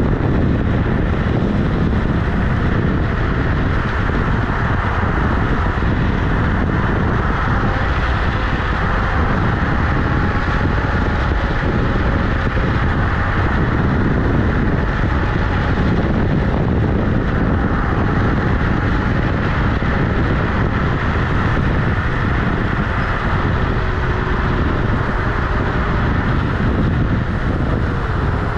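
Steady road and wind noise from an electric scooter riding on asphalt: the tyre rumbling on the road surface and wind buffeting the microphone at wheel height.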